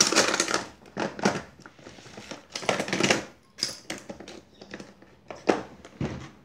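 Rummaging through small objects: irregular clicks, knocks and rustling as someone searches for and picks out a cotton swab.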